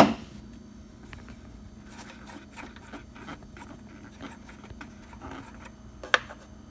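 Handling noises from fitting the hose of a refrigerant recharge kit to its can: a loud sharp knock at the start, light rubbing and scraping, and a sharp click about six seconds in. A faint steady hum runs underneath.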